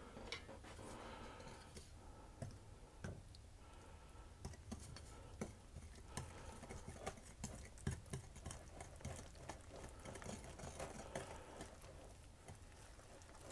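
Eggs and oil being stirred into flour in a mixing bowl to make a soft dough: faint, irregular clicks and taps of the mixing utensil against the bowl.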